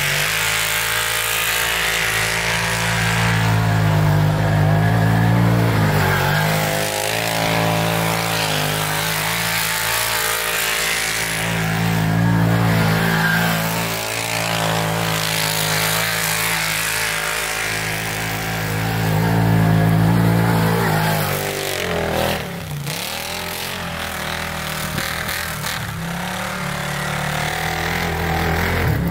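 2012 Arctic Cat Wildcat 1000 side-by-side's V-twin engine revved hard and held high while the machine spins donuts in snow, its pitch wavering and swelling as it slides. About three-quarters of the way through, the revs drop off suddenly, then climb again near the end.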